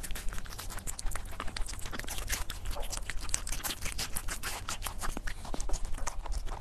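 A small pet chewing watermelon close to the microphone: a dense run of quick, wet crunching clicks.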